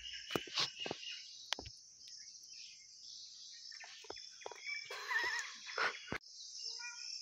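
Steady high-pitched insect chirring in the open air, with a few sharp clicks and taps. A bird gives a short warbling call about five seconds in and a few short chirps near the end.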